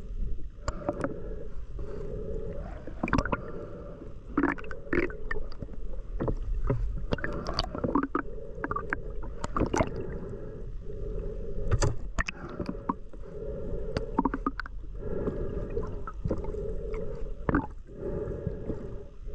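Muffled underwater sound through a camera's waterproof housing: a steady low water wash with many scattered short clicks and knocks.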